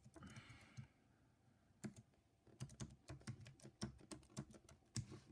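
Typing on a computer keyboard: a few scattered key clicks in the first half, then a quick run of keystrokes through the second half, as an Apple ID is typed in.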